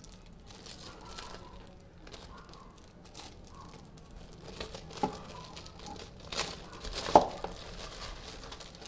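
Clear plastic bag crinkling as it is handled, in irregular crackles, the loudest about seven seconds in.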